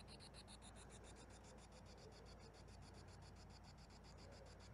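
Near silence, with a faint, rapid, even high-pitched pulsing of about eight pulses a second and a faint low hum underneath.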